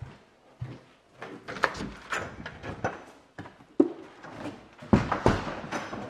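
Footsteps and the clatter of an interior door being unlatched and opened, with several sharp knocks, the loudest near the end.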